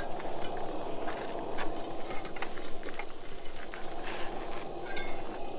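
Portable gas cooking burners running with a steady hiss, with faint scattered ticks.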